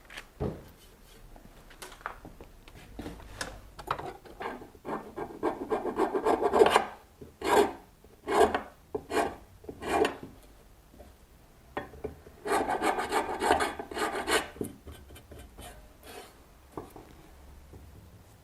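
Coarse sandpaper rubbed by hand over a stone tray in irregular scraping strokes. The strokes come in spells with short pauses between them and grow fewer and quieter near the end.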